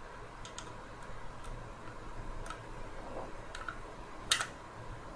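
Faint, scattered clicks and ticks of hard plastic parts being handled inside a Dyson V10 vacuum handle during a trigger repair, with one sharper click about four seconds in.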